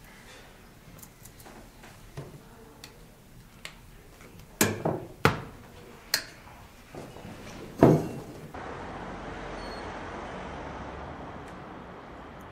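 A few sharp knocks and clunks of things being handled and set down on a wooden desk, the loudest near the middle. Then a steady hiss of outdoor street ambience.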